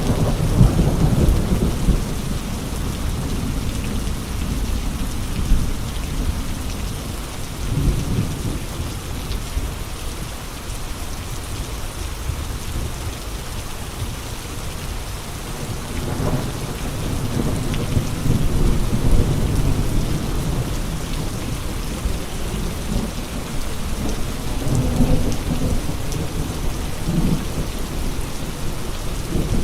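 Steady rain with gusting wind, and low rumbles of thunder or wind that swell and fade several times: near the start, around a quarter of the way in, in the middle and near the end.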